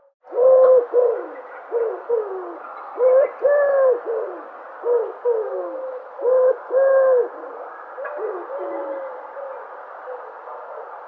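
Dove cooing: a run of short, low coos, some swelling and falling in pitch, given in several phrases with short pauses between them, over a steady background hiss.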